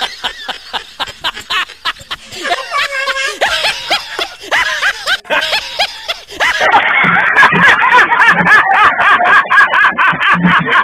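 Human laughter: short repeated ha-ha bursts, then from about six seconds in a louder, denser stretch of open-mouthed laughing.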